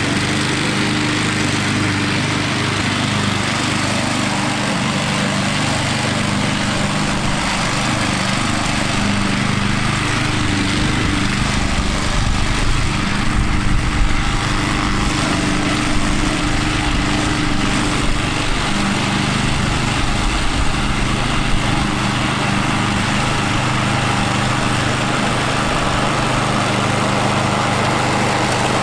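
Walk-behind gasoline lawn mower running steadily under load while mowing, its engine note wavering slightly about halfway through.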